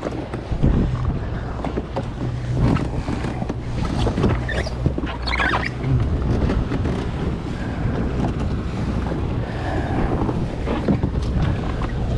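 Sea-Doo Fish Pro jet ski's engine running steadily, with wind on the microphone and water noise around the hull, and a few light knocks.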